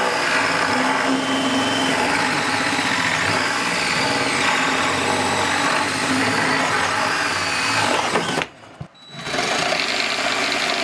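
Power tool running steadily under load, stopping for about a second near the eight-second mark and then starting again.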